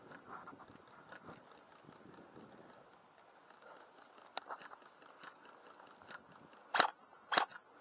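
Faint crunching and small clicks, like footsteps on dry ground and brush, then two sharp shots from an airsoft gun near the end, about half a second apart.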